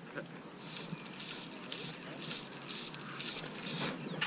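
An insect calling in a steady rhythm of short, raspy, high chirps, about two a second, starting under a second in.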